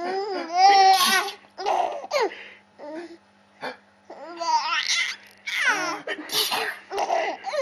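A three-month-old baby laughing in a string of high-pitched giggles and squeals, six or so bursts with short breaths between, at the sneezes being made for him.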